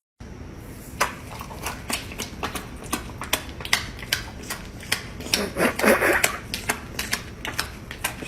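A rapid, irregular run of sharp clicks and taps, with a brief louder, rougher sound about five and a half to six seconds in.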